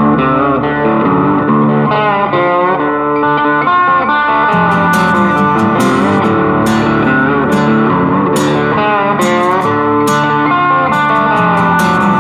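Background music led by electric guitar, with bent, sliding notes. Sharp percussion hits join in about four and a half seconds in.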